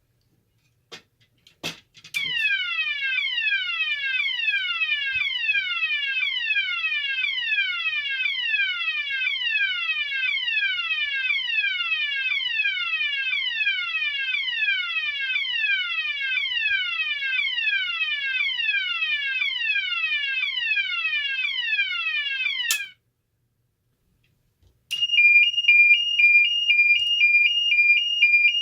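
Cooper MIN-T fire alarm sounder stepping through its tones. After a few clicks it gives a fast repeating downward sweep, about two a second, for some twenty seconds, then cuts off. After a short silence it starts a two-pitch tone alternating high and low near the end.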